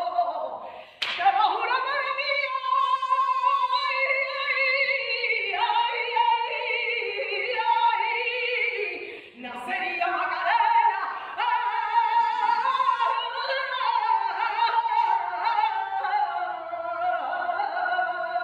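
A woman singing a flamenco saeta unaccompanied, in long held lines with wavering, ornamented melismas. She breaks for breath about a second in and again about nine seconds in.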